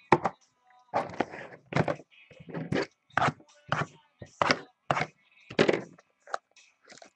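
Cardboard trading-card hobby boxes being handled: a quick series of short, irregular knocks and thunks as boxes are moved and set down.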